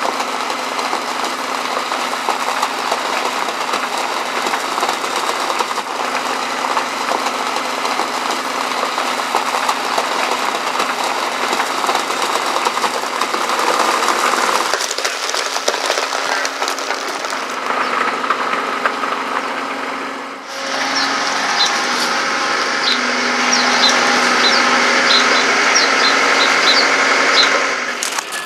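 Boatyard travel lift's engine running steadily as it carries a sailboat. The sound changes abruptly about 15 and 20 seconds in, and short high chirps come over it near the end.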